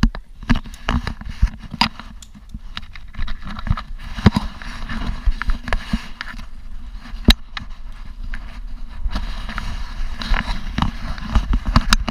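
Irregular clicks, knocks and rustling over a low rumble: handling noise from an action camera carried by someone moving about in zipline gear.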